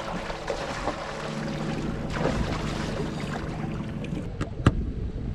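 Boat motor idling with a steady low hum over a hiss of water and wind. A single sharp knock sounds near the end.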